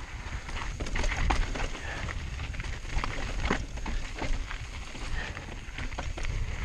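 Mountain bike riding down a rocky dirt trail: tyres crunching and rattling over loose rock, with many sharp clicks and knocks. Wind rumbles on the chin-mounted action camera's microphone.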